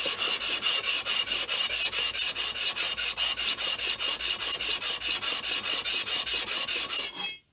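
Cast iron base casting of a Stuart S50 mill engine rubbed back and forth on wet-and-dry abrasive paper over a surface plate: a rapid, even scraping of several strokes a second that stops just before the end. The underside is being lapped flat, with the rubbing taking the engineer's blue off the high spots.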